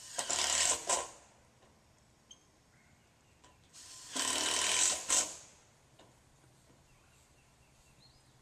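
Cordless screw gun driving gasketed self-tapping screws through steel roofing panels: two screws, each a run of about a second ending in a brief spike, roughly three and a half seconds apart.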